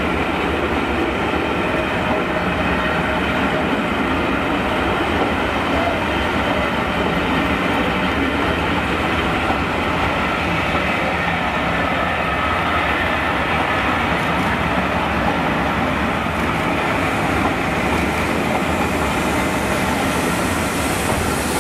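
British Rail Mark 1 passenger coaches rolling past at close range: a steady, continuous noise of wheels running on the rails.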